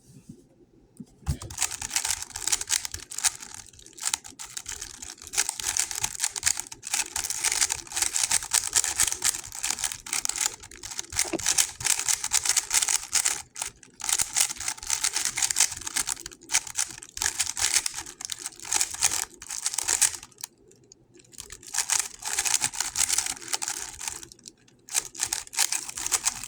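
GAN 11 M Pro speedcube being turned fast during a timed solve: a dense, rapid clatter of clicking layer turns, with brief pauses about 20 and 25 seconds in.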